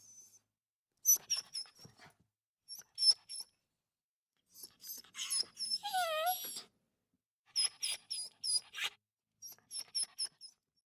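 A dog whimpering and crying in clusters of short, high-pitched whines with silent pauses between them. About six seconds in, one longer, lower whine rises and falls in pitch.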